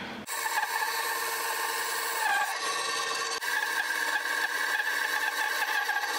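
Bandsaw running and cutting through a laminated blank of lacewood glued onto zebrawood: a steady whine with the rasp of the blade in the wood, starting abruptly just after the beginning.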